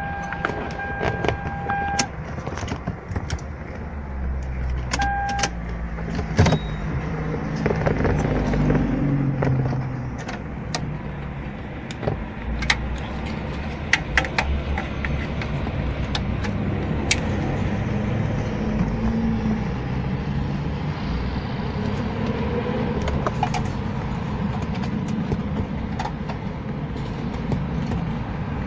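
Car interior sounds: an electronic warning beep sounding for about two seconds, and again briefly about five seconds in, then scattered clicks and rattles over a steady low rumble.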